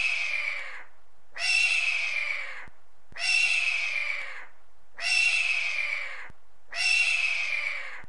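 Hawk screaming: five hoarse calls, each about a second long and falling slightly in pitch, repeated evenly about every two seconds.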